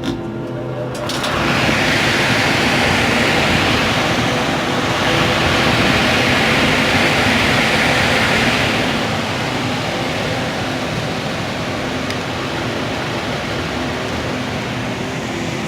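Gas furnace running on a call for heat: a steady motor hum, joined about a second in by a loud rushing noise that eases after about nine seconds into a lower steady rush.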